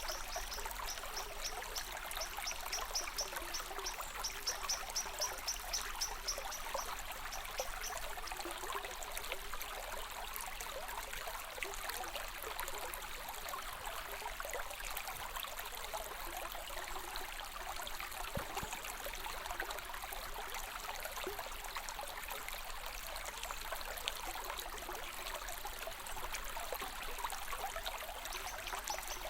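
Small stream trickling and babbling steadily. A high, fast pulsing chirp runs over the water for about the first seven seconds and comes back near the end.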